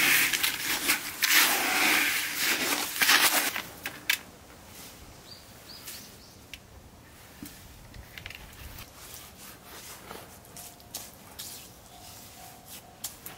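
Hand trowel scraping and stirring a gritty mortar mix in a plastic bucket for about the first four seconds, then faint scattered taps and scrapes as the mortar is worked by hand.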